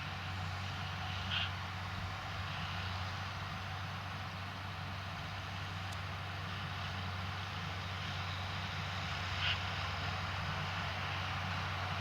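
Potato harvesting machinery, a harvester working with a tractor, running steadily with a low engine hum and the rattle of the machine, and two short sharp sounds, one about a second in and one near the end.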